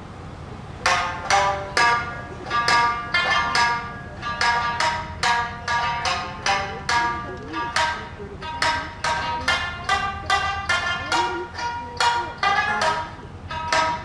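Music: a plucked string instrument playing a quick, even run of notes that starts about a second in. A low steady hum lies beneath it.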